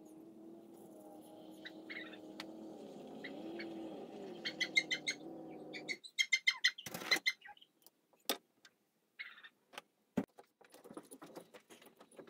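Dodge Ramcharger engine fitted with a Carter Thermoquad carburetor, running with its speed drifting slightly up and down, then cutting off abruptly about six seconds in. Scattered sharp clicks and knocks follow.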